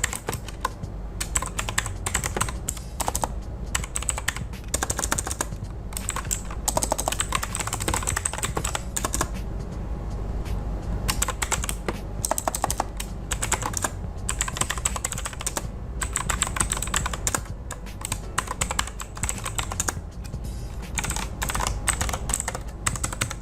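Typing on an Ant Esports MK3400V2W mechanical keyboard with clicky blue switches: rapid keystroke clicks in runs, broken by brief pauses.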